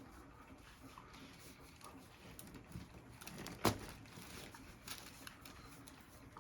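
A single sharp crack about three and a half seconds in, with a smaller click about a second later, amid faint rustling of hands and clothing: the pop of a chiropractic thrust on the patient's back.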